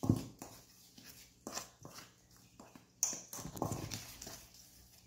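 Wooden spoon stirring dry flour, cocoa powder and sugar in a stainless steel bowl, knocking and scraping irregularly against the metal.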